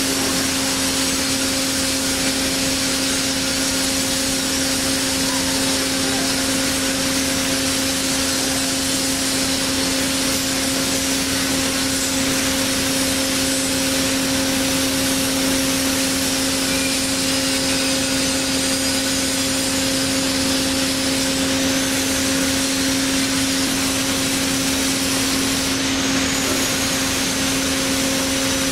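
Hyd-Mech S-20A horizontal band saw running: a steady machine hum with a constant low tone and a fainter one an octave above, over an even hiss.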